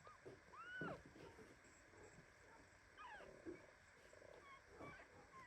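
Newborn kittens mewing faintly in short, high, arching cries: one about a second in, a few more about three seconds in, and more near the end.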